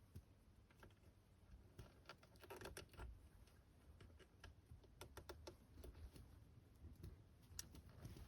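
Near silence, with faint small clicks and ticks scattered irregularly throughout.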